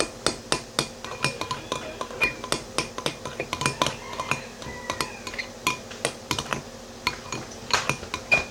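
A spoon stirring slime mixture in a bowl, clinking against the sides in quick, irregular taps several times a second, as glue and activator are worked together to make slime.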